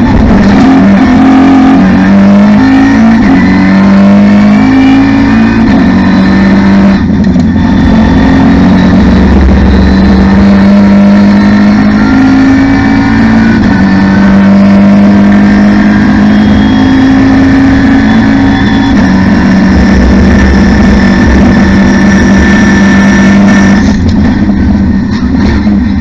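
Cupra TCR race car's turbocharged 2.0-litre four-cylinder, heard from the cockpit at full throttle, accelerating hard out of a slow corner with the pitch climbing and dropping back at each of several quick upshifts. Near the end the driver lifts off and the engine falls away as the car downshifts for the next corner.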